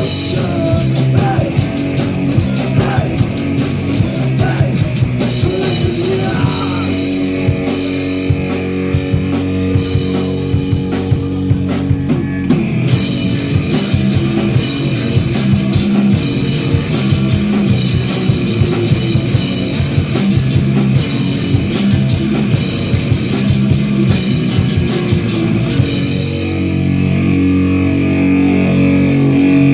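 Live rock band playing loud with drum kit and distorted electric guitar; about 26 seconds in the drums stop and a held guitar chord rings on to close the song.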